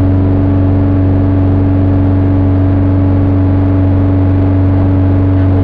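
Rally car engine running steadily at a constant speed, held at the start line, heard from inside the cabin.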